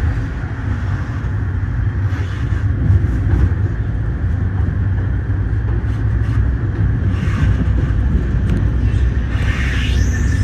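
A Metra commuter coach rolling out of the station, heard from inside the rear car: a steady low rumble of the wheels on the track with a few short clicks and knocks, and a brief squeal near the end.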